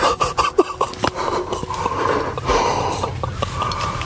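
Hushed whispering mixed with rustling, scraping and clicking as clothing and gear are handled close to the microphone.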